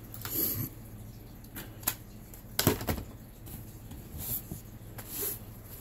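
Rustling of packaging and goods being handled and pulled out of a box, with a few sharp clicks and knocks; the loudest knock comes a little before halfway through.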